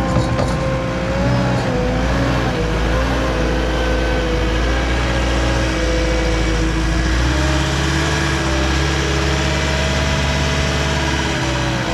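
Diesel engine running steadily under varying load, its pitch wavering slightly, with a shift in its low rumble about seven seconds in.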